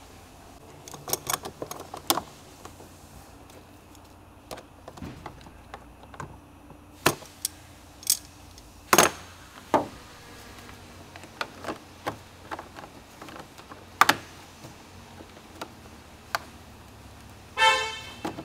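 Scattered clicks and knocks of hard plastic engine-bay parts, the air intake ducting, being handled and fitted back into place, with a short pitched squeak near the end.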